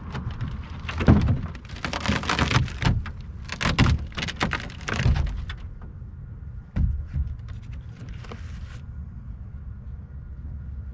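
Knocks, scrapes and rattles of hand work on a small flat-bottom boat as a stubborn part is removed, busiest in the first five seconds, with one more sharp knock about seven seconds in.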